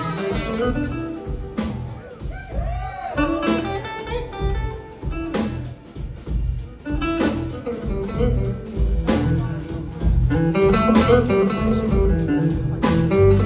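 Live blues-rock band playing an instrumental passage: an electric guitar lead with gliding, bent notes about two to three seconds in, over bass and drums.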